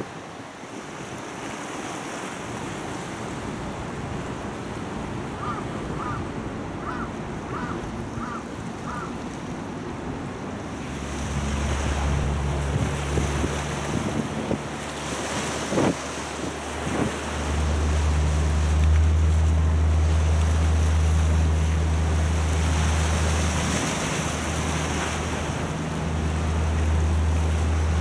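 Waterfront harbour ambience: wind and water noise, with a few short high chirps early on. From about a third of the way in, a strong steady low rumble takes over, with wind buffeting the microphone and boats out on the water.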